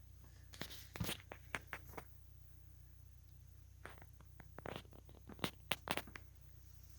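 Faint handling noise: scattered clicks and rustles in two bunches, about a second in and again from about four to six seconds, over a low steady hum.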